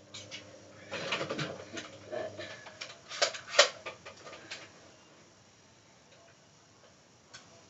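A run of sharp plastic clicks and knocks, some close together, lasting about three and a half seconds, then it goes quiet.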